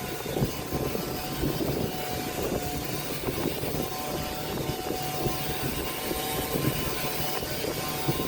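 Electric woodworking power tool, a sander or router, running steadily against wood: a continuous motor drone with a faint steady whine and a rough, fluttering hum.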